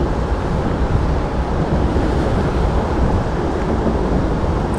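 Wind buffeting the microphone: a steady, rumbling rush of noise that flutters in level.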